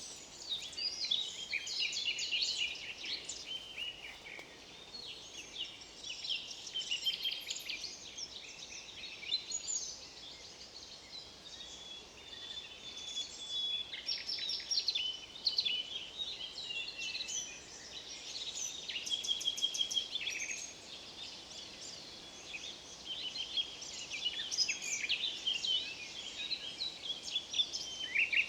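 Several songbirds singing at once: a dense, overlapping dawn-chorus-like mix of rapid chirps, trills and short whistled notes that swells and eases every few seconds.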